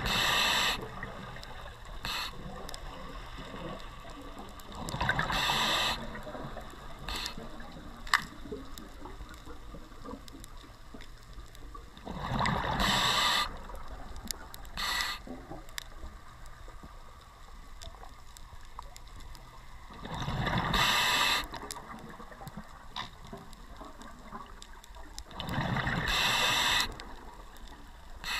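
Scuba regulator exhaust bubbles from the diver's breathing: about five loud bubbling gushes, each a second or so long and five to eight seconds apart, with short clicks and a low underwater rumble between them.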